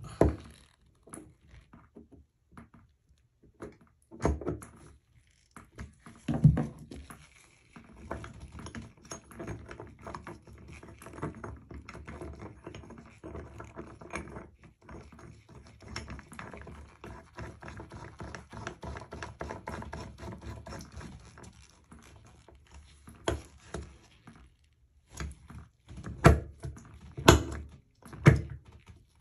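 Chrome bathtub drain stopper being fitted: a screwdriver working in the drain, then the stopper turned and pressed in the drain by hand, with small metal clicks, scraping and knocks. A long run of rapid faint clicking fills the middle, and several sharper knocks come near the end.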